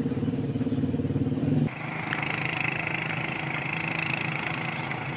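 An engine running steadily, cut off abruptly under two seconds in, followed by a steady high-pitched hiss or buzz.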